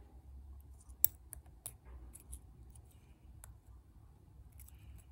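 Lock pick and tension wrench working the pins of a lock: a scatter of small, sharp metallic clicks and scrapes, the sharpest about a second in, over a faint low hum.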